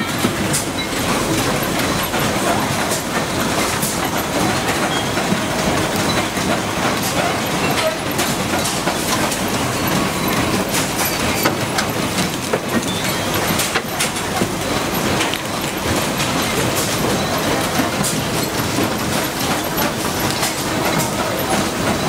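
Steady machinery din from a motor stator production line, a constant rattling clatter with scattered small clicks and knocks.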